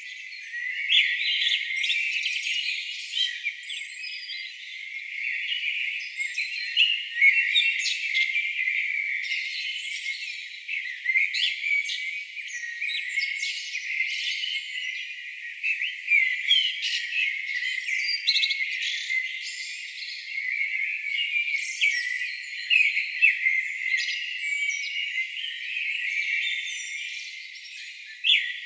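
A chorus of songbirds: many overlapping chirps, trills and whistles from several birds at once, with no low sound at all beneath them.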